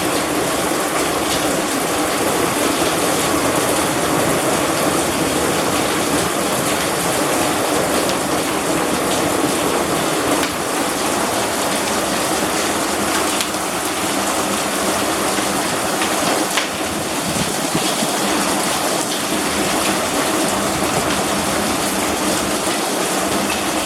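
Heavy rain with hail pouring down: a dense, steady hiss with scattered sharp ticks of stones striking.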